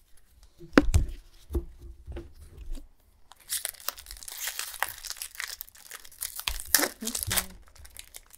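Foil booster-pack wrapper crinkling and tearing open, a dense run of crackles and small snaps from about three seconds in. A few sharp knocks come about a second in.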